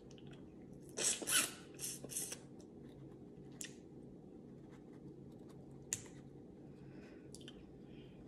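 Close-up eating sounds: a quick run of wet sucking and lip-smacking noises about a second in, then a few faint clicks and ticks as a piece of shellfish is peeled by hand. A faint steady hum lies under it all.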